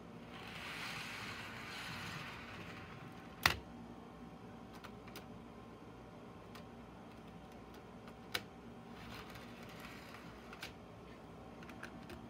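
HO scale model freight cars being pushed by hand along the track: a soft rolling rattle of the little wheels on the rails at first, then sharp clicks and small knocks of the cars being handled, the loudest about three and a half seconds in and another about eight seconds in, with scattered light ticks.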